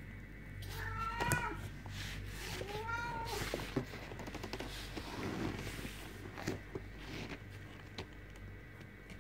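Kittens mewing: two short, high, wavering mews, about one and three seconds in. Soft rustling and scattered clicks follow.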